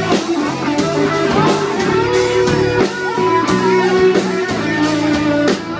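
Instrumental break of a country-rock song: a lead guitar plays sustained notes that bend up and down, over a band with regular drum beats.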